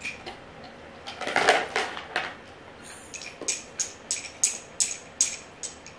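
Small hard plastic toys clicking and clattering together as they are handled, with a run of sharp clicks, two or three a second, through the second half. A louder, noisier burst of handling comes about a second and a half in.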